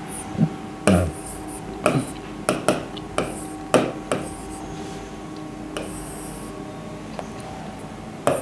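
A pen tapping and scraping on an interactive board's screen during drawing and writing: about ten sharp, irregular taps, the loudest about a second in, over a faint steady hum.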